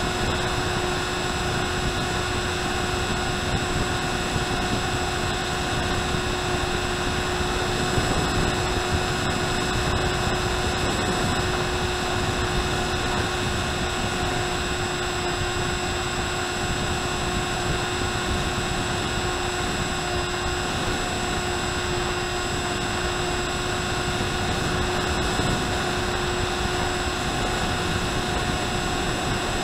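Electric motor and propeller of an RMRC Penguin FPV model plane running at a steady cruise throttle, heard from the plane's onboard camera as a constant whine with several fixed pitches over a rush of wind.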